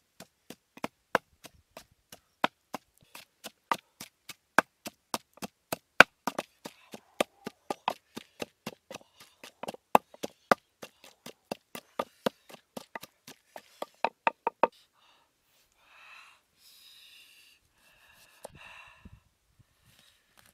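Wooden pestle pounding red chilies in a wooden mortar: a steady run of sharp wooden knocks, about two to three a second, that stops abruptly about 15 seconds in. A few softer scraping and rustling sounds follow.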